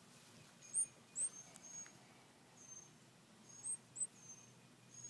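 Baby bird nestling chirping, a series of about eight short, very high, thin cheeps, some sweeping quickly upward: begging calls, the kind nestlings give when they think a parent has come.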